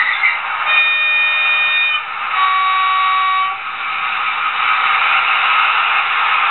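Sound decoder of a Trix H0 DB V 100 diesel locomotive model sounding its two-tone horn: a higher blast of about a second, then a lower one. A steady hiss runs underneath.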